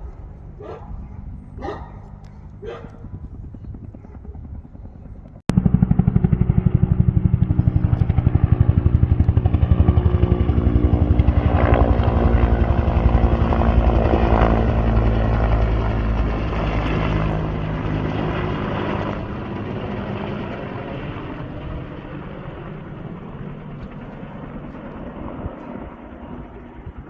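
Firefighting helicopter flying close by, ferrying water, its rotor beating loudly. It starts abruptly about five seconds in and fades over the second half as the helicopter moves off.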